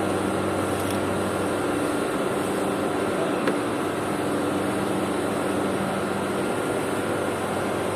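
Steady low mechanical hum over a constant background rush, with one short click about three and a half seconds in.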